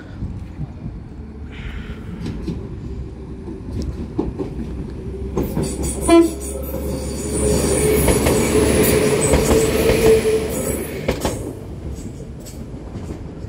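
A diesel multiple-unit passenger train sounds one short horn blast about six seconds in, then passes close by at speed, its engines and wheels running loud for about four seconds before dropping away.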